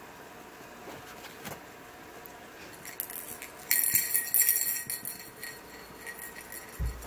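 A small bell jingling in a quick shake for about a second and a half, about halfway through, shaken by a playing ferret. A soft low thump near the end.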